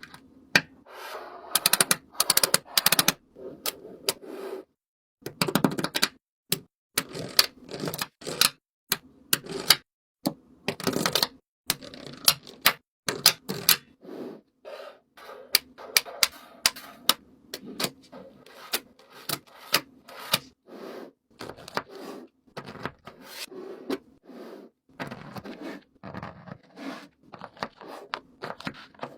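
Close-up handling of DIY fidget toys: many sharp clicks and taps with short crinkly, scratchy rustles between them, in quick irregular runs.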